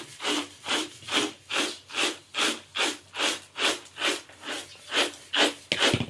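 Crushed groundnut pods being winnowed on a flat hand tray: a rhythmic rustling swish of shells and kernels, about two to three tosses a second. The tossing sorts the loose shells away from the peanut kernels.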